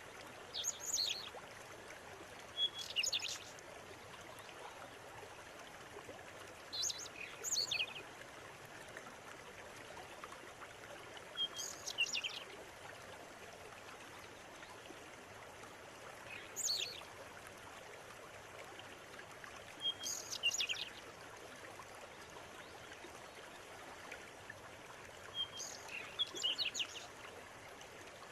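A river flowing steadily, with a bird singing short, high, chirping phrases over it about every four to five seconds, seven phrases in all.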